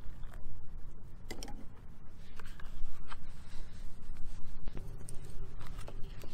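Light clicks and scrapes of a paper instant-noodle cup, its lid and chopsticks being handled, a few separate ticks over a steady low background rumble.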